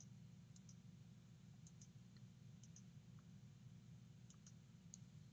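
Near silence: faint low room hum with about half a dozen faint computer-mouse clicks, each a quick double tick.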